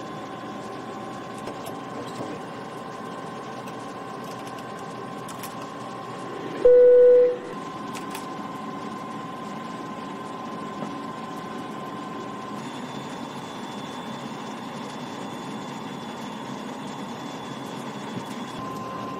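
Airliner flight deck noise on approach: a steady hum of airflow and avionics with several faint steady tones. About seven seconds in, a single loud beep sounds for under a second.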